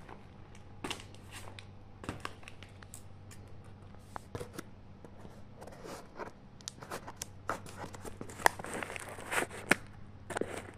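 Steel scissors snipping and cutting through the packing tape and cardboard of a parcel: a string of short clicks and snips that grows busier and louder in the second half, with a few tearing rips of tape and cardboard.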